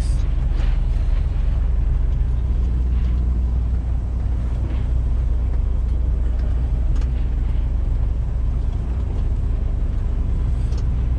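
Tractor-trailer driving, heard from inside the cab: a steady low engine and road drone with light scattered rattles and ticks.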